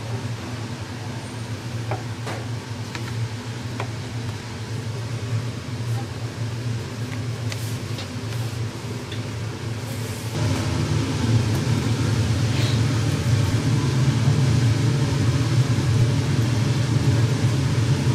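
Steady low mechanical rumble with a few light clicks and knocks. It becomes louder and fuller about ten seconds in.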